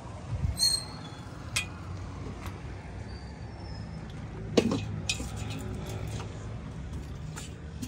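Metal bar stools with black tube frames clinking and knocking against each other and the car as they are handled and loaded, in a few separate knocks, the loudest a little past halfway, over a steady low rumble.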